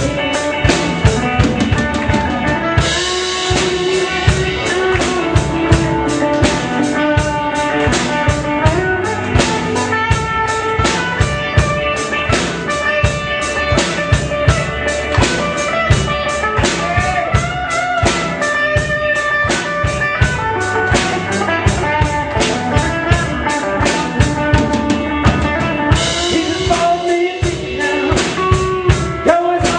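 Instrumental break of a gospel rock song: a drum kit keeping a steady, driving beat with cymbals, under guitar and bass lines.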